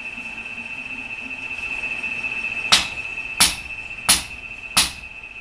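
Magnetic-base tapping machine running with a steady high whine. About halfway through come four sharp metallic clicks, evenly spaced, roughly one and a half a second.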